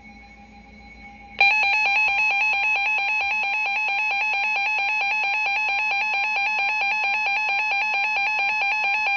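NOAA Weather Radio emergency alert tone announcing a flood warning: a loud, rapidly alternating two-tone warble that starts about a second and a half in, after a brief quiet lull, with a steady single tone sounding beneath it from about two seconds in.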